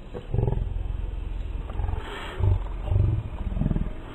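Kamoer KPP2 mini peristaltic pump's DC motor running steadily as it pumps water through the tube: a low, rapidly pulsing buzz with a few louder swells.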